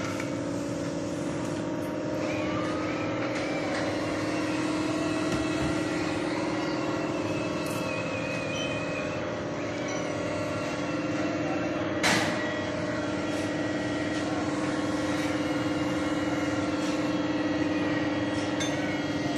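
A steady mechanical hum, with one sharp click about twelve seconds in.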